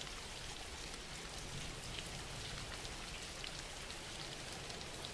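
Steady, soft rain with a fine patter of scattered drops, a recorded rain ambience running under a guided relaxation.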